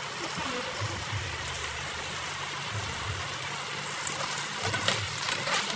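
Food frying in a hot pan: a steady sizzling hiss, with crackles growing denser about four seconds in.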